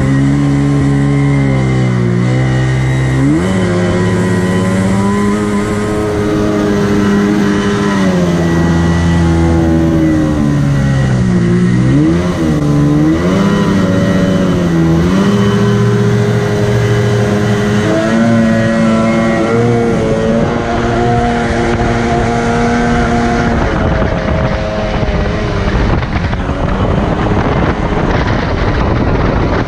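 Jet-drive outboard motor on a jon boat running under way, its pitch dipping and climbing several times as the throttle is eased and opened. The pitch sits highest about two thirds through, then gives way to a rougher, noisier sound near the end.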